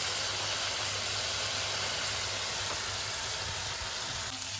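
Ground onion-ginger-garlic masala paste sizzling steadily in hot oil in a karahi as it fries down, the oil separating from the paste. A steady low hum runs underneath.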